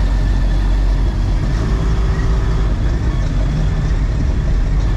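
Low, steady rumble of show cars and trucks idling and creeping past in a slow line.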